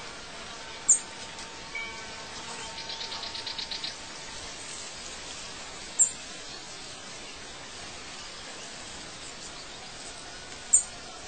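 Outdoor ambience of birds chirping over a steady hiss. Three short, sharp, high chirps about five seconds apart are the loudest sounds, and a fast trill of about ten notes a second comes about three seconds in.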